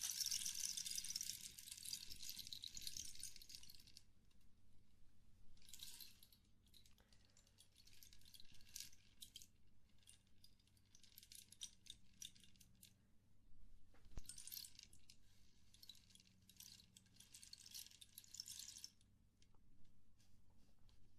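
Toy slime being squished and worked by hand close to the microphone, in soft crackly, squelchy bursts. The longest burst lasts about four seconds at the start, followed by several shorter ones with pauses between.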